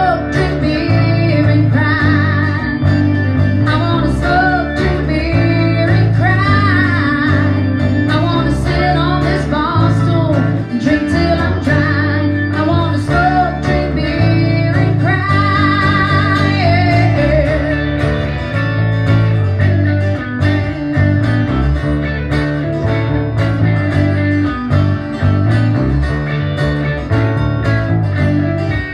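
A small band plays a song live: strummed acoustic guitar, electric bass and electric guitar, with a singer's voice over them.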